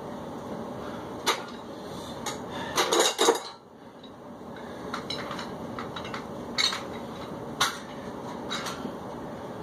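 Metal dumbbells clinking and clanking a few times as they are picked up and set down, with a loud cluster of clanks about three seconds in. A steady background hiss runs underneath.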